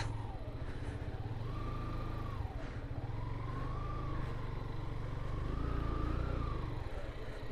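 Motorcycle engine running while riding slowly, its note rising and falling gently with the throttle. The bike is a Yamaha FZS V2 with a single-cylinder engine.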